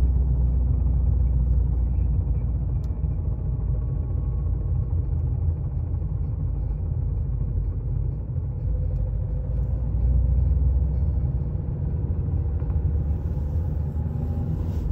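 Ford 1.6 TDCi diesel engine heard from inside the car as it rolls in first gear off the throttle, a steady deep rumble with engine-braking drone. On the overrun the warm engine clatters at the front, which the owner likens to a failing connecting-rod bearing.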